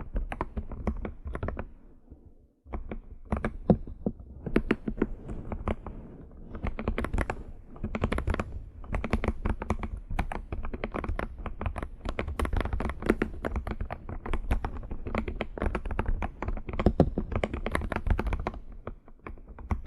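Fast, continuous typing on a computer keyboard, a dense patter of key clicks that stops briefly about two seconds in, then carries on.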